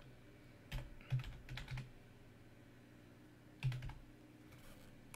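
Typing on a computer keyboard, in scattered keystrokes: a cluster of clicks about a second in, a pause, then a couple more a little past halfway.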